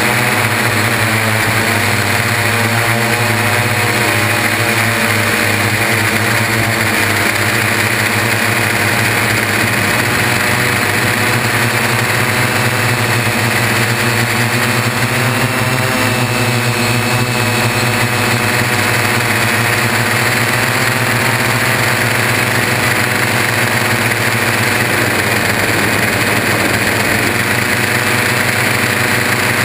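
Y6 multirotor drone's six electric motors and propellers buzzing steadily, with small shifts in pitch as the motor speeds change. It is heard close up through a camera hard-mounted on the frame's landing gear.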